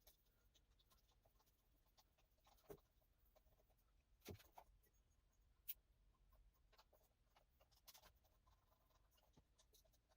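Near silence: quiet room tone with a few faint, brief clicks and scrapes.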